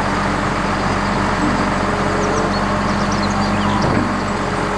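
Flatbed tow truck's engine running steadily at idle with its bed tilted and a small dump truck loaded on it. Birds chirp faintly in the background.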